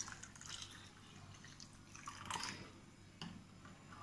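Warm milk pouring quietly from a steel pan into a plastic tub, dying down to faint drips.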